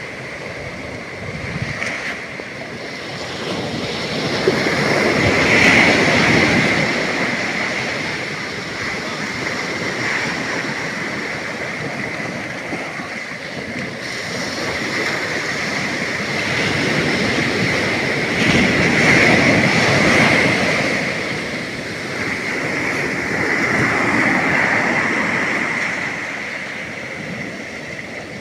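Sea surf breaking on a beach, a steady wash of water that swells and ebbs in slow surges as waves come in. The biggest surges come about six seconds and about nineteen seconds in.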